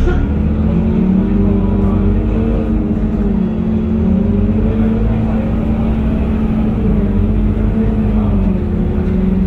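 Scania K230UB city bus's five-cylinder diesel engine and drivetrain running as the bus drives along, heard from inside the passenger cabin, the engine note rising and falling gently. A short sharp noise comes right at the start.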